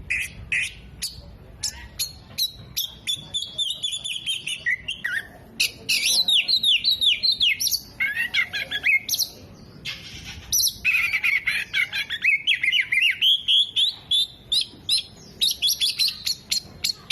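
Oriental magpie-robin singing a fast, loud, varied song of quick chirps, rapid note runs and descending trills, with barely a pause.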